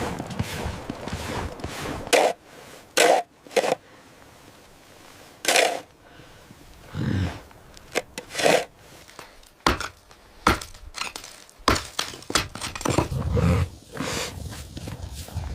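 A string of separate knocks and scrapes, like hard objects being handled and set down, about a dozen of them with short quiet gaps, coming closer together near the end.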